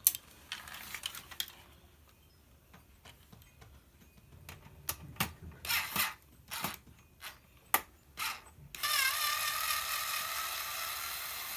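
Sharp clicks and knocks of metal parts and screws being handled while a printer is taken apart. About nine seconds in, a small electric motor starts a steady whir, its pitch wavering briefly as it spins up, then holding.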